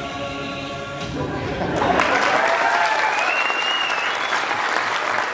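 Music ends about a second in and a live audience breaks into applause, with a few cheers among the clapping.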